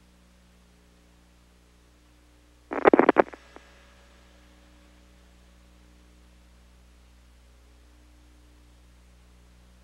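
Steady electrical hum of a NASA TV downlink audio feed. About three seconds in it is broken by a loud, crackling burst of static lasting about half a second, followed by a faint click.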